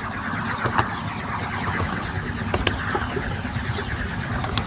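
7¼-inch gauge miniature train running along its track, a steady rattling rumble of wheels and carriages broken by a few sharp clicks.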